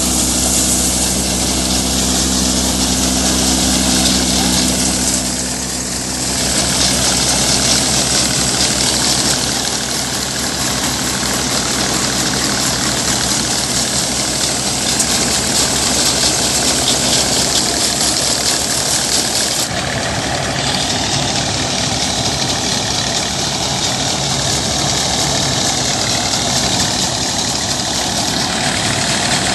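Combine harvester at work in a standing crop: a steady engine and machinery drone. The sound changes abruptly twice, about five and twenty seconds in.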